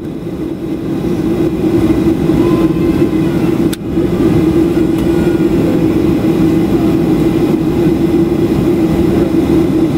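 Jet airliner's engines at takeoff power, a loud steady rumble that builds over the first couple of seconds, dips briefly about three and a half seconds in, then holds.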